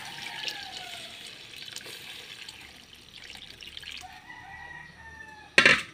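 Water poured from a glass bowl into a wok of sponge gourd and sardines, with a rooster crowing twice in the background. A brief loud clatter near the end.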